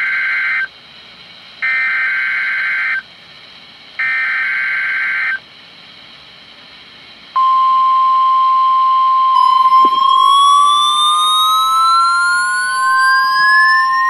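NOAA Weather Radio Required Weekly Test: three bursts of warbling SAME data tones, each about a second long with short pauses between, from a weather radio's speaker. About seven seconds in, a steady high alert tone starts. A couple of seconds later a second tone joins it, rising steadily in pitch.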